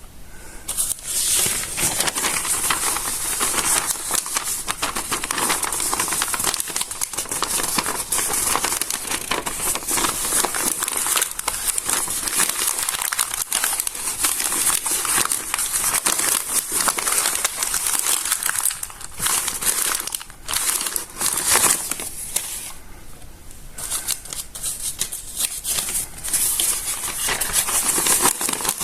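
Stiff, water-damaged notebook pages being handled and smoothed by hand, making continuous crisp crunchy crinkling, a little softer for a couple of seconds near the end.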